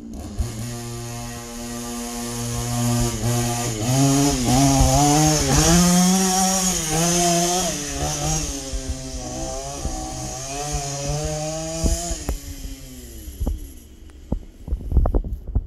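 GoPed Trail Ripper scooter's small two-stroke engine revving under way, its pitch rising and dipping with the throttle. It is loudest in the middle, then drops in pitch and fades over the last few seconds.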